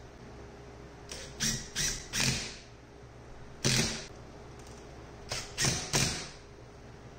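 Makita cordless driver run in short trigger bursts, driving screws through a wooden block into a plywood wall: a group of three quick bursts, a single one, then three more near the end.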